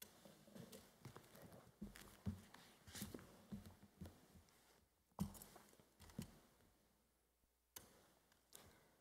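Near silence broken by faint, irregular knocks and clicks, with a few stronger thumps about two, three and five seconds in.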